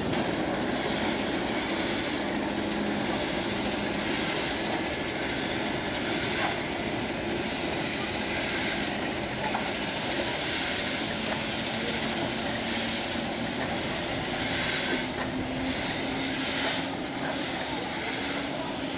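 Steam locomotive hissing steadily as it lets off steam, with the hiss swelling louder every second or two.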